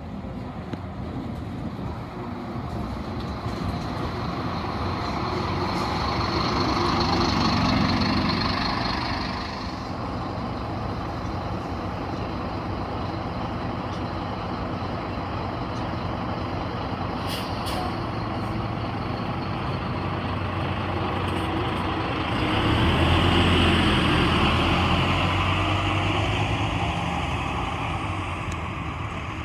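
City route bus pulling in to a stop, its engine running while it stands, with a short hiss of air partway through; about three-quarters of the way in the engine note rises and grows louder as the bus accelerates away.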